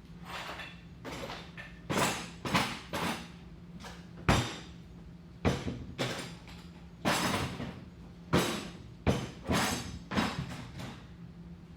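A dozen or so knocks and clatters at irregular intervals, like objects being handled and set down, the sharpest about four seconds in, over a faint steady hum.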